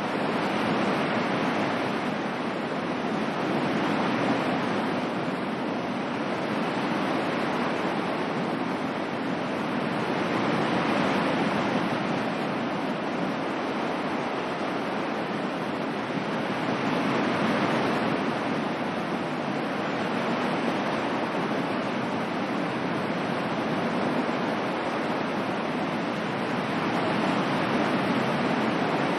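Ocean waves washing on a shore as a steady rush of surf, swelling and easing every several seconds.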